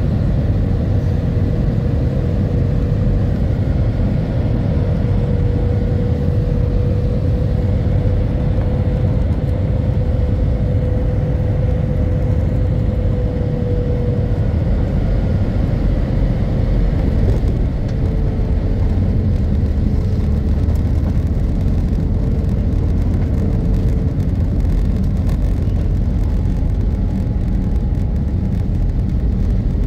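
Cabin noise inside a jet airliner rolling along the runway after landing: a steady rumble of the engines and wheels, with a faint whine that holds for about fourteen seconds and then comes and goes in shorter, shifting tones.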